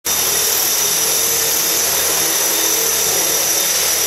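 Electric radio-controlled model helicopters running: a steady high-pitched motor whine over the rush of the spinning rotors.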